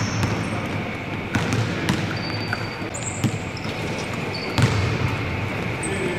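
Basketballs bouncing on a hardwood court during a shooting drill in an empty arena, several thuds a few seconds apart, with a few short high sneaker squeaks.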